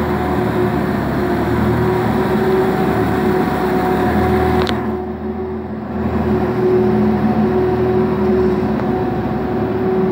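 Zamboni 552 ice resurfacer running steadily as it drives across the ice, with a steady hum over its engine noise. A sharp click comes about halfway through, and the sound briefly drops and dulls before picking up again.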